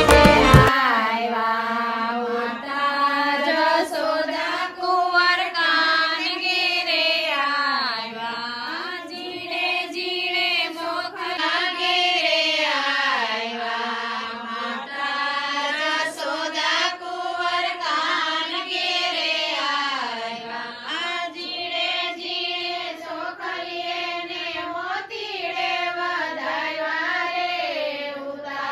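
A song with a single singing voice carrying a slow, gliding melody in long phrases, in Indian devotional style.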